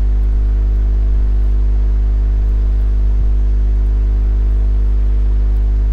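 Steady low electrical hum with a stack of constant overtones at an unchanging level, with a faint click or two of a computer mouse.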